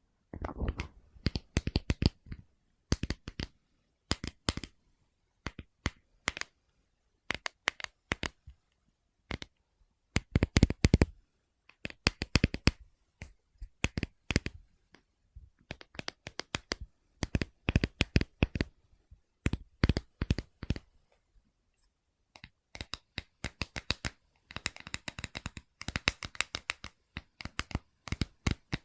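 ASMR knocking and tapping: quick clusters of sharp taps on objects with short pauses between them. Near the end the taps come faster and carry a faint ring.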